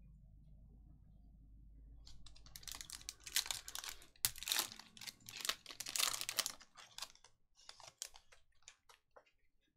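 Foil trading-card pack wrapper being torn open and crinkled by hand: a dense crackling from about two and a half seconds in to about seven seconds, then sparser crackles and clicks as the cards are slid out of the wrapper.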